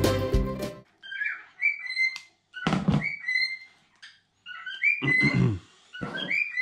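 Background music stops about a second in; then pet cockatiels chirp again and again in short whistled calls, with three dull thunks in between.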